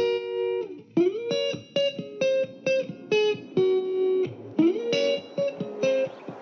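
Background music: a plucked electric guitar playing a melody of single notes with slides up and down between them.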